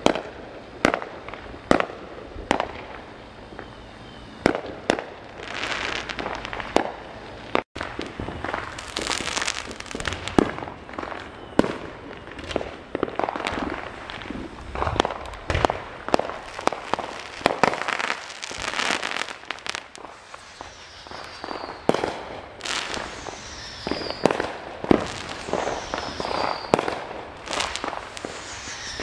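Aerial fireworks going off in quick succession: many sharp bangs, some followed by crackling. In the last several seconds a few short whistles fall in pitch.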